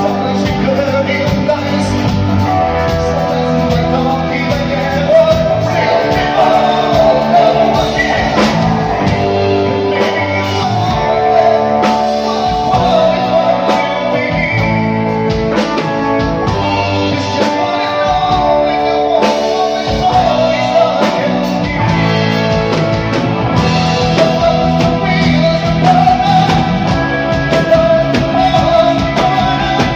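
Live band performing, with a man singing lead into a microphone over electric guitar.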